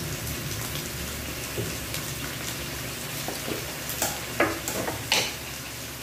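Beef chunks frying in soy sauce in a non-stick pan: a steady sizzle, with a few sharp crackles and spatters in the second half.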